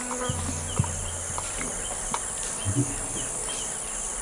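Steady high-pitched chorus of forest insects, with short chirps repeating every half second or so. There are a few faint clicks, and a low hum in about the first second.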